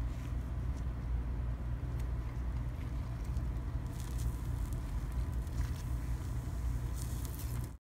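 Beaten egg sizzling in a frying pan, with a steady low hum beneath it. Faint light clicks and scrapes of a fork on the bread and pan come in after about four seconds and again near the end.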